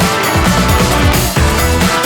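Background music: an energetic rock-style track with a steady driving beat.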